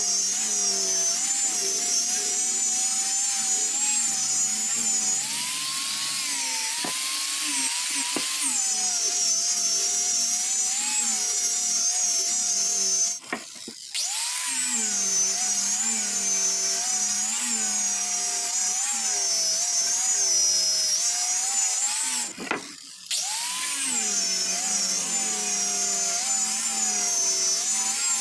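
Handheld electric angle grinder with a sanding disc, running steadily as it sands a wooden board, its high motor whine wavering in pitch as the disc is pressed and moved along the wood. The sound drops away briefly twice, about halfway through and again about two-thirds of the way in.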